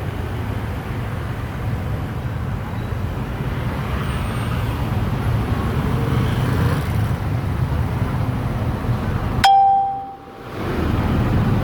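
Steady low rumbling background noise, with one sharp metallic ding about three-quarters of the way through; right after the ding the sound briefly drops out and then returns.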